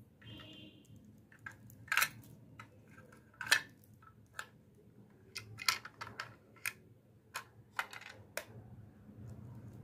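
Small hard-plastic clicks and taps from a miniature toy refrigerator as its doors are opened, handled and snapped shut: about a dozen sharp, irregular clicks, the loudest two about two and three and a half seconds in.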